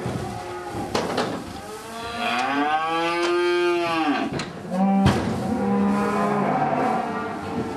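Calves mooing inside a livestock transport truck. One long call rises and falls in pitch about two seconds in, and a lower call follows around five seconds, with a few sharp knocks in between.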